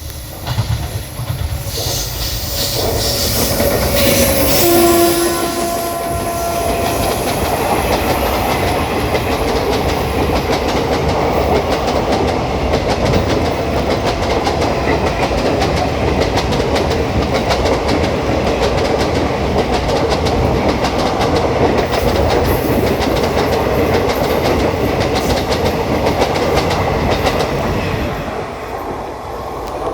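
A passenger train hauled by a WAG-9HC electric locomotive passes at speed. Its horn sounds briefly about five seconds in, then the coaches rumble and clickety-clack past for about twenty seconds before it eases near the end.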